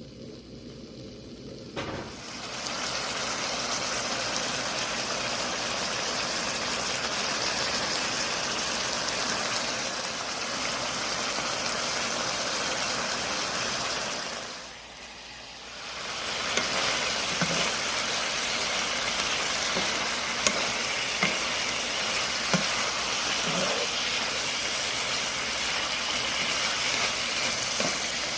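Shrimp and chicken sizzling as they stir-fry in a pan, a steady hiss that drops away briefly about halfway and then returns, with a few light taps as it is stirred.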